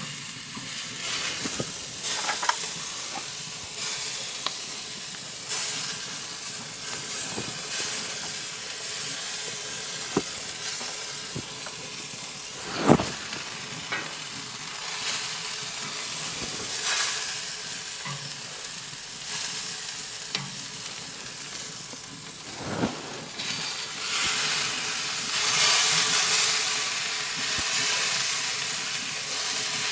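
Charcoal and wood fire in a smoker's firebox hissing and sizzling steadily, a little louder near the end, with a few sharp knocks, two of them clearer than the rest.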